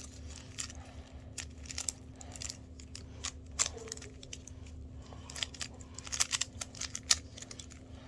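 Rubik's cube layers being turned by hand: quick, irregular plastic clicks and clacks, sparse at first and coming in faster runs over the last few seconds.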